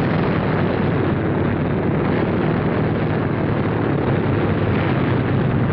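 Radial piston engines of four-engined World War II heavy bombers running steadily on the ground, a loud unbroken rumbling drone of engines and propellers.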